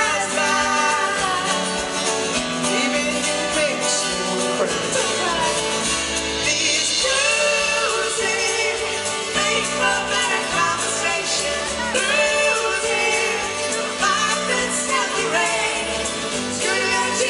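Live pop-rock band playing, with a male and a female singer singing a duet over the drums and band.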